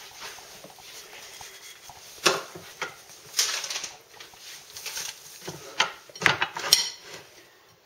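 Utensil and dish handling: a spatula, plate and table knife give a string of sharp knocks and short scrapes as a toasted grilled cheese sandwich is set on the plate and cut.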